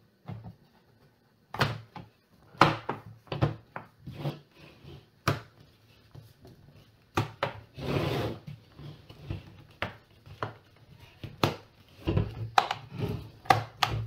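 Plastic bottom cover of an HP Pavilion Gaming 15 laptop being pressed down around its edges, its clips snapping into place as a string of sharp clicks and knocks. A longer scrape comes about halfway through, and the clicks bunch together near the end.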